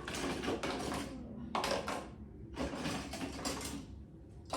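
Hair clips clicking and clattering as they are handled and set into a drawer organizer, in three bursts of rattling.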